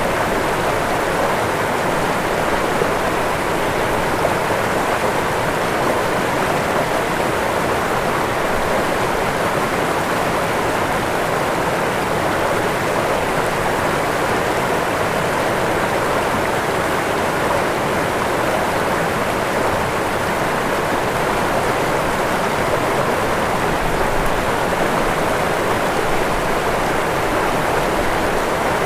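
Waterfall: falling water rushing steadily, an even roar with no breaks.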